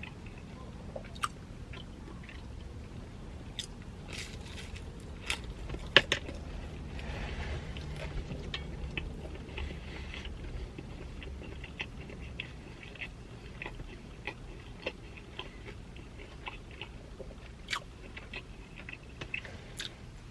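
Close-miked chewing of pepperoni pizza with barbecue ranch: a string of wet mouth clicks and smacks, the sharpest about six seconds in.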